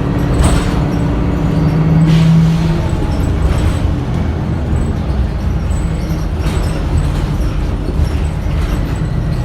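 Inside a 2009 Orion VII Next Generation hybrid bus with a Cummins ISB diesel and BAE Systems HybriDrive: steady drivetrain rumble, with a humming tone that is loudest about two seconds in and then fades, and a few short rattles or hisses.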